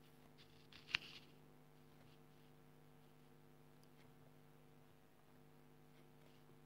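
Near silence with a faint, steady hum. One sharp click comes about a second in, and a couple of faint ticks follow later.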